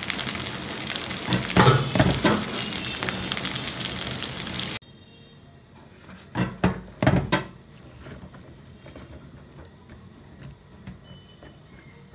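Kitchen tap running into a plastic bowl of water and cauliflower florets, stopping abruptly about five seconds in. A few sharp knocks follow, then faint splashing as a hand swishes the florets in the water.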